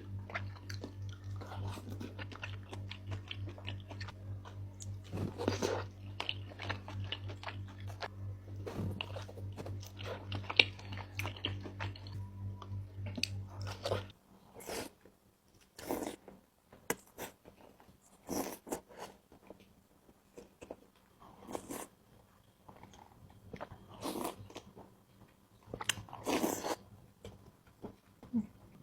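Close-miked chewing and wet mouth sounds of someone eating seblak with beef tongue. A steady low hum lies under the first half and stops about halfway through, after which the chewing comes as separate smacks with short pauses between them.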